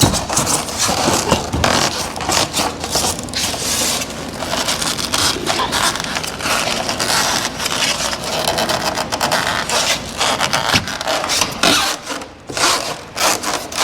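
Foam insulation panel being forced and rocked into the channel of a metal garage door panel: continuous scraping and rubbing of foam against metal, with many short knocks and crackles.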